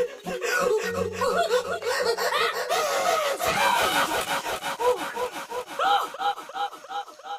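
Cartoon animal voices laughing and chattering together, many quick rising-and-falling squeaky calls overlapping one another.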